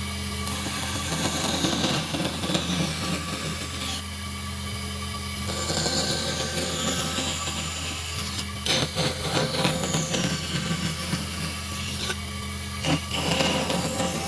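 Wood being worked with a tool: a rough sawing or rasping scrape that goes on in uneven passes, changing texture several times, over a steady low hum.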